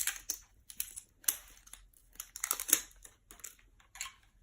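Plastic crinkling and sharp clicks in irregular bursts as two 9-volt batteries are handled and fitted into the battery box of an adjustable bed base.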